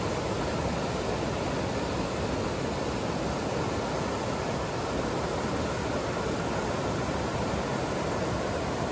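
Floodwater from an overflowing bayou rushing steadily across flooded ground.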